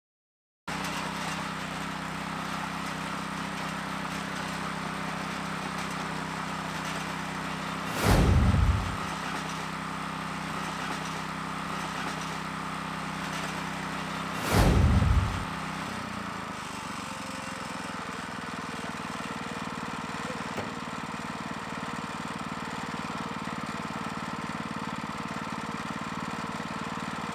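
Rototiller's small gasoline engine, a newly fitted Harbor Freight replacement, running steadily while tilling. Near the middle there are two loud, brief low thumps about six seconds apart.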